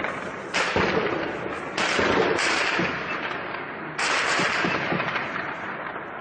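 Loud bangs from a street clash between police and militants: four sharp reports, about half a second, just under two, about two and a half, and four seconds in, each followed by a long fading echo.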